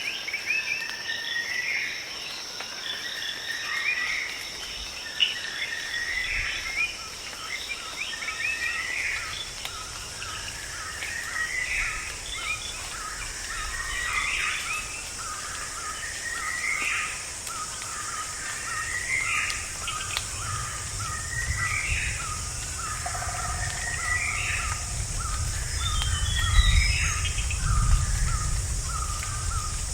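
Rainforest ambience: a bird repeats a short rising call about every second and a half over a fast, steady train of lower notes and a constant high-pitched insect drone. A low rumble swells in the second half.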